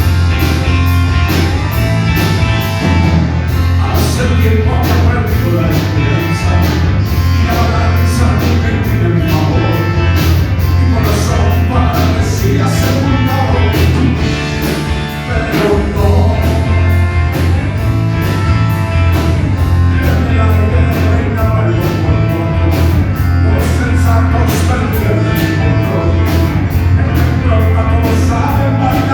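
Rock band playing live, with a strong bass line and a steady drum beat driven by regular cymbal strokes.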